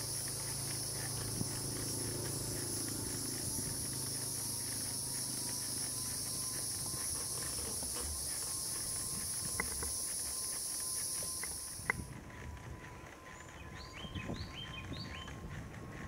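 Steady high-pitched insect chorus buzzing from the roadside woods, with a few sharp clicks near the end. The chorus stops suddenly about twelve seconds in, and a quieter stretch with a few short chirps follows.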